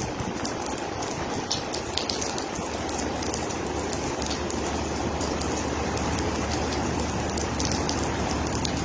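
Heavy rain pouring down, a steady hiss scattered with the sharp ticks of drops striking hard surfaces.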